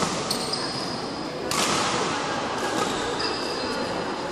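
Badminton rackets smacking a shuttlecock in a rally in an echoing sports hall, sharp hits every second or so, with brief high squeaks from shoes on the court floor.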